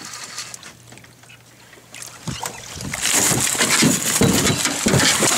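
A large northern pike thrashing at the water's surface beside the boat: a loud burst of splashing with heavy thumps that starts about three seconds in.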